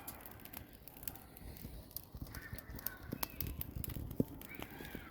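Faint, scattered crackles and pops of a freshly lit wood fire burning in a steel burn cage, with a few faint bird calls in the second half.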